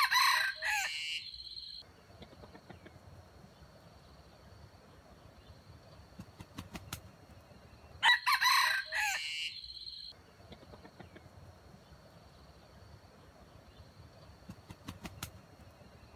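A junglefowl rooster crowing twice, about eight seconds apart, the two crows alike. Between them a faint steady high hum and a few soft clicks.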